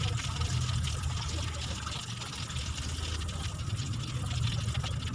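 Breaded chicken deep-frying in a wok of hot oil in the last minutes of cooking, with the pieces floating at the surface. The oil bubbles with a steady sizzle full of fine crackles over a low steady hum.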